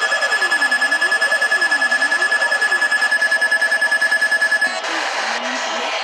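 Emergency alert tone on a broadcast: a steady high tone over a lower tone that sweeps up and down about once a second, with a fast pulsing of about ten beats a second. It cuts off abruptly about three-quarters of the way through, leaving hiss and crackling clicks.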